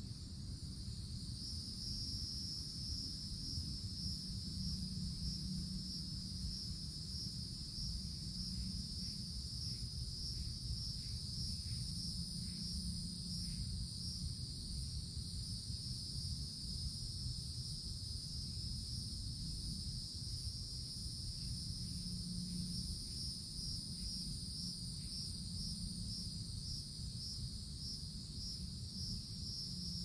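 Cicadas in the tree canopy making a continuous high-pitched drone, which at times pulses in a fast, regular rhythm of about two to three beats a second. A steady low rumble runs underneath.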